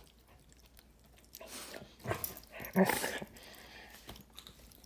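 Giant Schnauzer gnawing and chewing on a bone, in a few short noisy bouts starting about a second and a half in. The loudest bout comes near three seconds and includes a brief vocal noise from the dog.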